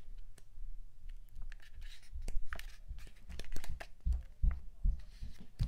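Paper sticker-book pages being flipped by hand: rustling and crinkling paper with small clicks, and a few dull bumps of handling about four to five seconds in.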